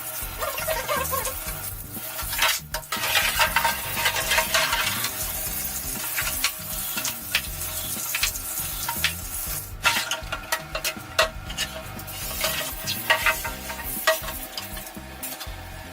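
A steady hissing noise with sharp clicks and clinks scattered through it, and faint background music.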